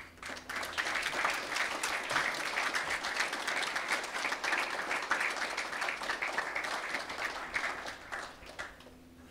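Audience applauding, starting just after the opening and dying away about a second before the end.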